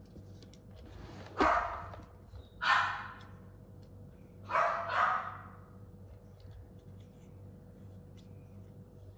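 A dog barking four times: two single barks, then a quick pair.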